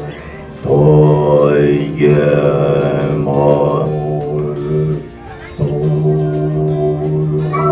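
Group of Buddhist monks chanting together in low, sustained unison tones, pausing briefly for breath at the start and again about five seconds in.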